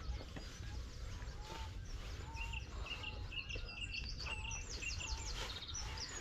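Several small birds singing, with many quick high chirps and trills and a run of repeated notes in the middle, over a steady low rumble.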